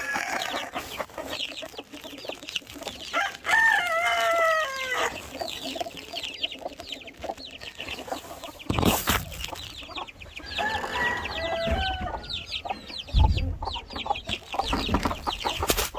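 Wheaten Ameraucana chicks peeping constantly in quick high cheeps. An adult chicken gives a longer, falling call twice, about three seconds in and again around eleven seconds. There are a few knocks or thumps around nine seconds and near the end.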